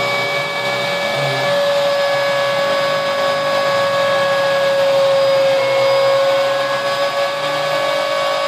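Homebuilt CNC router carving wood: the spindle motor runs with a steady high whine over the hiss of the bit cutting. Lower tones from the stepper motors shift in short steps as the machine moves.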